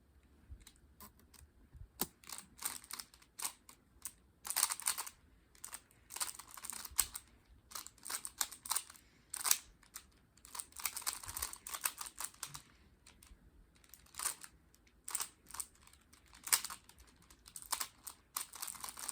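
3x3 Rubik's cube being turned quickly by hand: irregular runs of plastic clicking and clacking as the layers snap round, in short bursts with brief pauses between.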